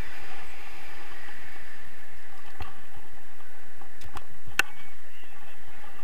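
Steady rush of wind over the camera's microphone in paraglider flight. A few sharp clicks in the second half, the loudest about three-quarters of the way in.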